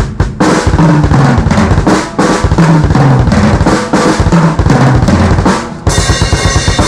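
Rock drum kit played hard on a sound check: fast fills of kick, snare and toms, ending about six seconds in on a ringing cymbal crash.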